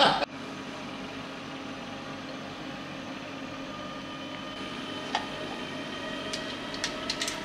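Steady mechanical hum with a few light clicks and taps near the end.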